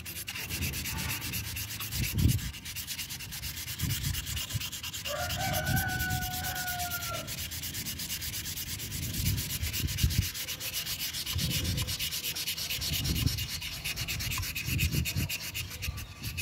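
Sandpaper, 240 grit, rubbed by hand along the lip of an alloy wheel rim in repeated back-and-forth strokes: a steady rasping scrape, wearing down curb-rash scratches in the metal.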